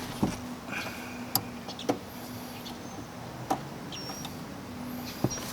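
Scattered sharp clicks and knocks, about five in all, from hands working a headlight bulb's plastic electrical connector in a cramped engine bay.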